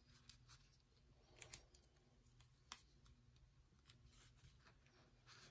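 Near silence with a few faint clicks and rustles: fingers pressing electrical tape down around a vinyl stencil on a steel knife blade.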